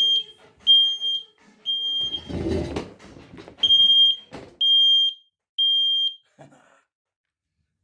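Smoke alarm sounding high, steady beeps in two groups of three, set off by smoke from a coal-and-wood fire; it stops about six seconds in. A short burst of low noise comes between the two groups.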